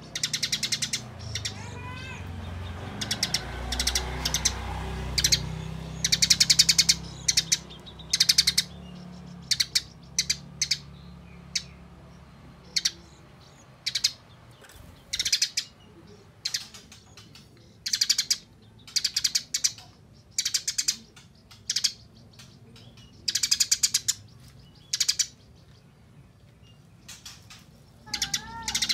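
Eurasian tree sparrow chattering in quick, dense trains of chirps, repeated in short bursts: the fast 'nyerecet' chatter of a fighting sparrow.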